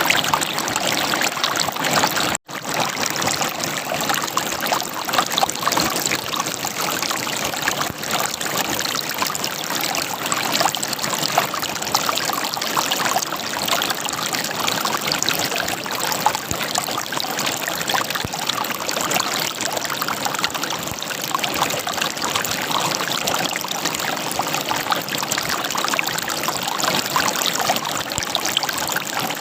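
River water running and gurgling over rocks, a steady babbling rush, with a split-second dropout to silence about two and a half seconds in.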